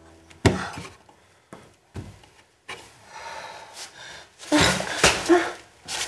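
Hands fumbling along a wooden sideboard with scattered light knocks and scrapes. Near the end an object is knocked off and lands with two loud knocks.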